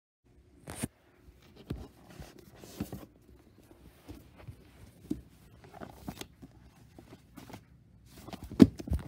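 Paper rustling and handling knocks as a hardcover book is picked up and its pages are leafed through, with a sharper knock near the end.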